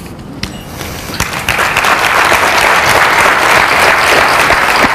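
Audience applauding: the clapping starts faintly and swells about a second and a half in into loud, steady applause.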